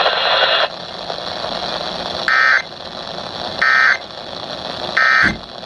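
Emergency Alert System end-of-message data signal on NOAA Weather Radio: three short, identical digital tone bursts about a second and a half apart, over radio hiss. It marks the end of the severe thunderstorm warning broadcast.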